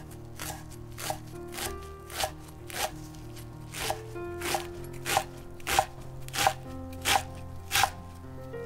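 Chef's knife slicing rolled perilla leaves on a wooden cutting board: a steady run of chops, about one and a half a second, growing louder in the second half.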